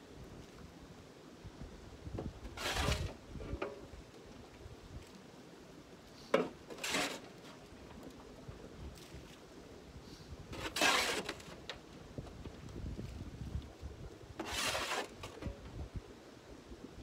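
Four rustling scrapes, each under a second long, about four seconds apart, with one sharp knock just before the second.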